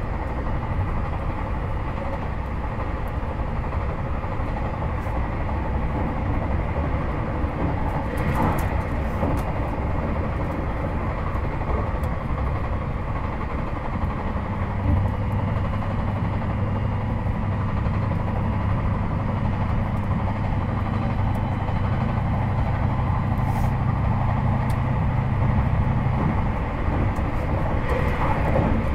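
JR Hokkaido 721 series 4000-subseries electric train with Toshiba GTO inverter drive, heard from inside a motor car while running at line speed: steady wheel and rail noise. A low steady hum joins about halfway through and dies away a couple of seconds before the end.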